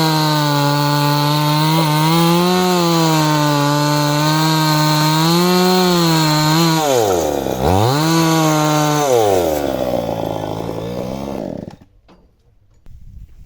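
Chainsaw running at high revs, cutting wood. The engine pitch dips sharply and recovers about seven seconds in, then falls away, and the saw stops near the end.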